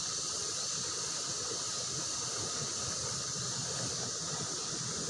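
Steady rushing of a fast-flowing river current, an even hiss without breaks.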